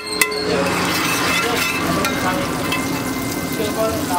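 Butter sizzling and foaming as it melts on a hot flat iron griddle (tawa), with one sharp tap of a steel spatula just after the start.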